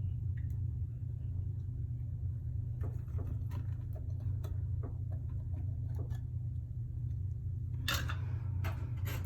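Plastic tarantula containers being handled: scattered light clicks and taps, then a louder scraping rustle near the end, over a steady low hum.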